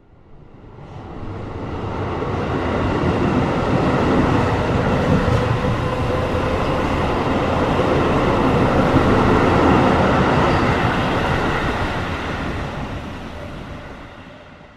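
A train passing by: a loud rolling rumble of wheels on rails that swells over the first few seconds, holds, then fades away near the end.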